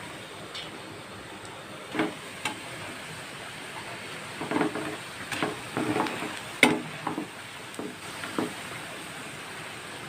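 Batter-coated bitter gourd slices sizzling steadily in hot oil. A metal spoon knocks and scrapes against the pan about eight times, the loudest a sharp clack a little past halfway.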